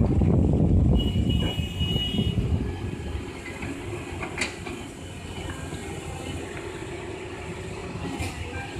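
Caterpillar 320C hydraulic excavator working: its diesel engine and hydraulics rumble heavily for the first second or two, then run more quietly and steadily. A brief high squeal comes about a second in, and a sharp click a little before the middle.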